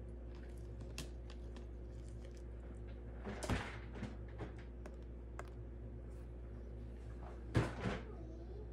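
Light clicks and taps on a hard plastic tub lid as dubia roaches are dropped onto it, with two louder short clatters about three and a half and seven and a half seconds in, over a low steady hum.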